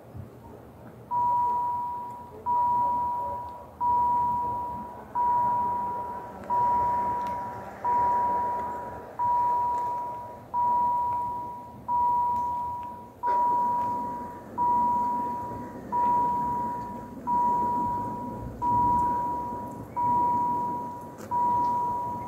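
Level crossing warning signal sounding: a single-pitched electronic tone repeating about every 1.3 s, each stroke starting loud and fading, beginning about a second in. It warns of an approaching train as the crossing's barriers come down.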